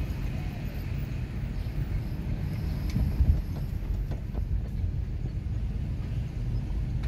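Car driving slowly, heard from inside the cabin: a steady low rumble of engine and tyres on the road, with a few faint clicks partway through.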